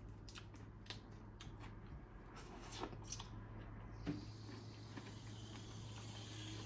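Faint crackles and clicks of a boiled shrimp's shell being peeled apart by hand, over a steady low hum.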